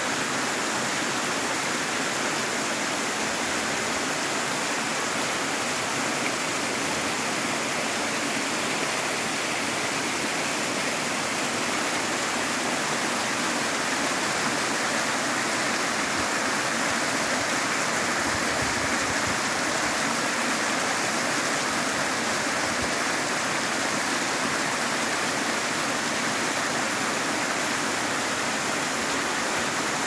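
Waterfall pouring down a rock face and splashing onto the rocks below: a steady, unbroken rush of falling water.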